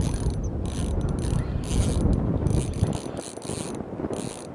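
Spinning reel being cranked in short spurts with brief pauses between them, its gears whirring, as a lure is retrieved. Wind rumbles on the microphone underneath.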